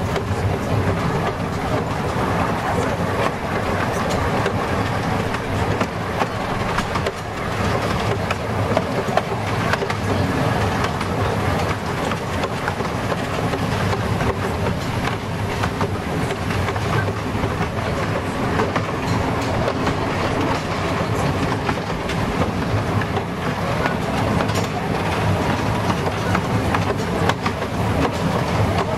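10¼-inch-gauge miniature steam train running along the track, heard from on board: a steady rumble of wheels on rail with faint clicks.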